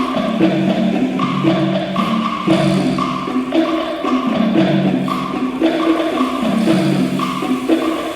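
A wind band playing a piece, with full held chords whose notes move about twice a second.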